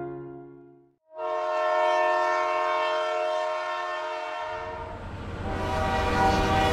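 A piano note fades out, then a cog railway locomotive's horn sounds one long, steady blast from about a second in. About four and a half seconds in, a low rumble joins beneath it.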